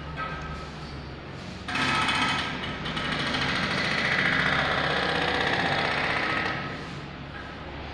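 Power tool at a construction site hammering rapidly, starting suddenly about two seconds in and dying away near the end.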